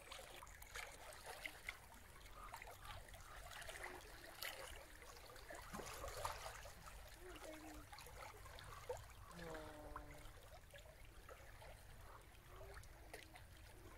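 Faint water lapping and trickling, with scattered small clicks and one short call with a clear pitch about nine and a half seconds in.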